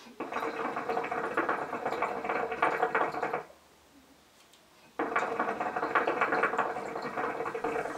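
Water bubbling in the base of a hookah (nargile) as the smoker draws through the hose: two long draws of about three seconds each, a rapid, steady gurgle, with a short quiet pause between them.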